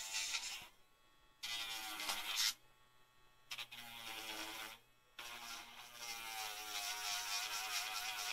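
An electric pet nail grinder buzzing on a dog's nails in four short runs with near-silent breaks between them. Its pitch wavers as the grinding bit presses on the nail.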